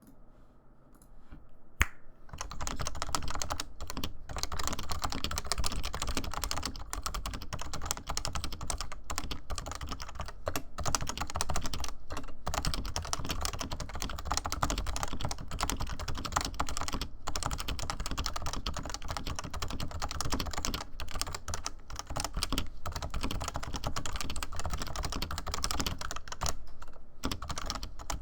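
Fast typing on a stock Realforce R2 keyboard with 55 g Topre switches: a dense, continuous run of soft keystrokes with a few brief pauses. It starts about two seconds in, right after a single sharp click.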